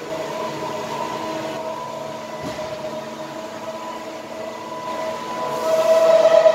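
Mazak Integrex 200-IV CNC turning and milling centre running: a steady machine hum with several whining tones over a hiss, with a single click about two and a half seconds in. It grows louder near the end.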